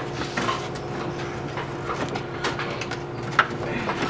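Scattered light knocks and scrapes of hands working on the exhaust pipe under the car, with a sharp click about three and a half seconds in, over a steady low hum.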